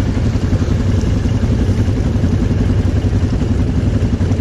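ATV (quad) engine idling close by, a steady low, evenly pulsing run.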